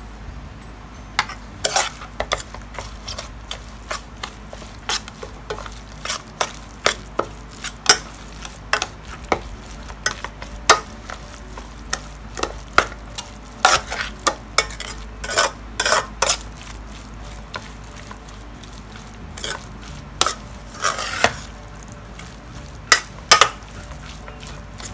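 Metal spoon stirring and tossing a moist minced-fish mixture in a metal bowl, with irregular clinks and scrapes of the spoon against the bowl.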